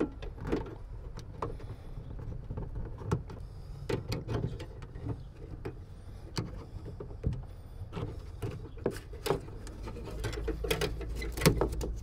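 Irregular small clicks, taps and scrapes of metal latch linkage rods and a screwdriver being worked inside the opened inner panel of a Citroën Berlingo rear door, over a steady low hum.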